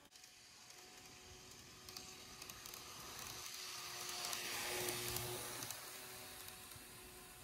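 KATO N-gauge model of a JR Shikoku train running past on its track: the whir of the small motor and the rattle of wheels on rail, with a steady hum. It grows louder, peaks about five seconds in as the train passes close, then fades as it moves away.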